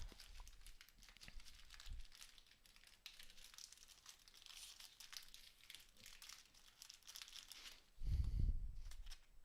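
Faint rustling and small clicks of trading cards being handled and slid past one another, with a dull low bump about eight seconds in.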